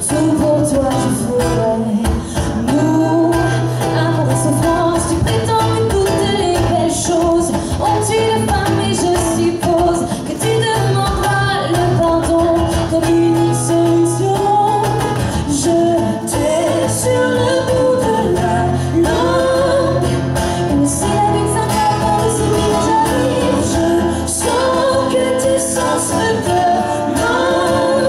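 A woman singing a song into a microphone, accompanied by strummed acoustic guitar.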